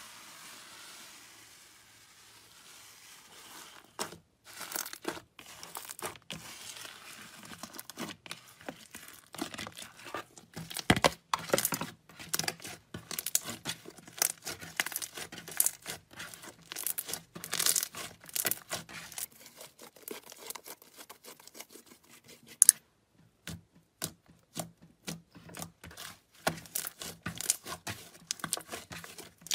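Hands working slime: a soft, steady fizzing squish as bubbly slime is stirred in a bowl, then from about four seconds in a long run of irregular sharp crackles and pops as a lump of glossy slime is kneaded and squeezed.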